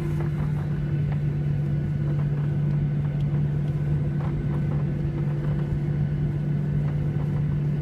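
Steady drone inside the cabin of a Boeing 737-800 with its engines running, a low hum holding one pitch throughout with no spool-up.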